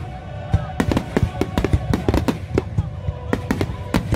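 Rapid barrage of aerial firework shells bursting, several sharp bangs a second in an irregular rattle, heard close to the launch site, with music of held notes playing underneath.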